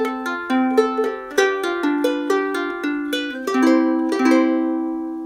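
Ukulele playing a short phrase of plucked notes and strummed chords, the last chord ringing out and fading near the end, recorded through an iPhone 7 Plus's built-in microphone.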